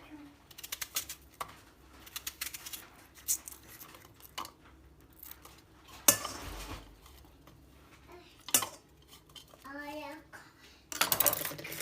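Irregular light clicks and clatters of small hard objects being handled, with one louder knock about six seconds in. A brief voice sounds near ten seconds, and a dense rustling noise starts just before the end.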